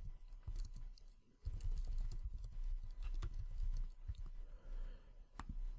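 Typing on a computer keyboard: a run of quick, light key clicks, with a short pause a little over a second in.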